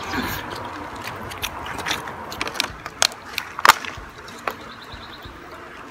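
Eating from a plastic takeout container: irregular sharp clicks and taps of plastic being handled, the loudest a few in the middle, over a light steady hiss.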